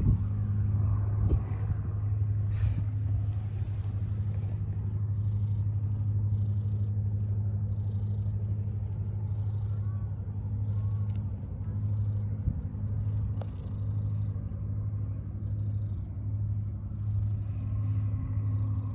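Domestic cat purring steadily at close range, the purr swelling and easing with each breath.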